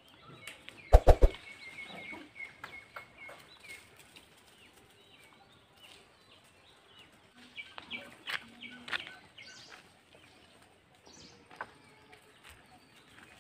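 Wild birds chirping and calling, with scattered short calls and a thin steady high note for about two seconds. A short loud sound comes about a second in.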